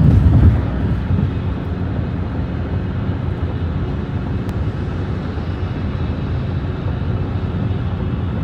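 Steady low road and engine noise heard inside the cabin of a moving car, with a short louder patch right at the start.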